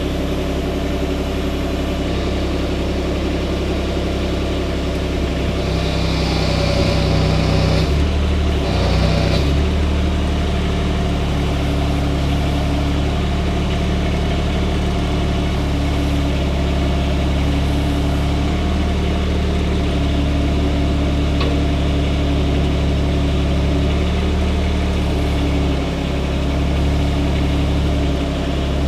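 Kubota U17-3 mini excavator's three-cylinder diesel engine running steadily with the hydraulics in use. About six seconds in a hiss rises over it for a couple of seconds, and it comes again briefly near nine seconds while the engine note dips.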